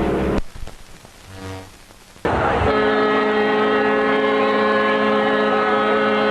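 A ship's horn sounding one long, steady blast that starts about two seconds in, after a short quieter gap. Just before the gap, an earlier held tone cuts off.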